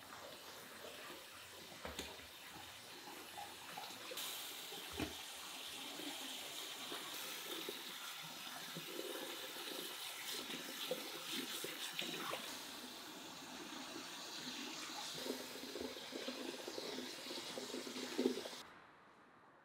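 Tap water running into a plastic bowl of tomatoes and splashing as they are rubbed clean by hand. It starts about four seconds in and cuts off suddenly near the end.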